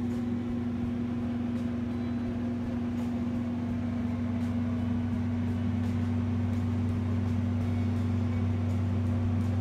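A steady mechanical hum holding one low pitch, with a deeper hum beneath it.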